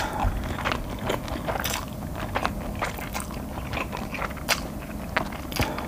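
Close-miked chewing of Buldak spicy stir-fried instant noodles, with frequent short wet mouth clicks.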